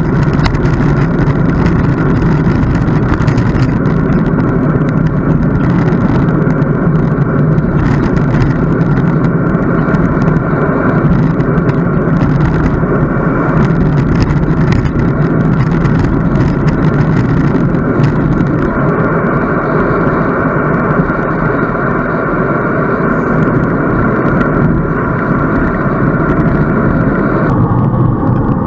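Steady wind rush over the microphone of a camera on a moving bicycle during a road ride.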